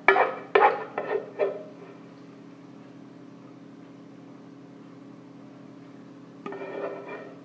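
A metal spoon scraping and knocking against a pan while scooping out thick chocolate brigadeiro topping: a quick run of several strokes, then another stroke near the end.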